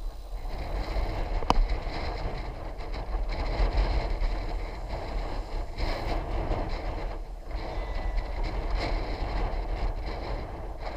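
Wind rumbling on the microphone over a steady rushing noise of a bicycle on the move, with one sharp click about a second and a half in.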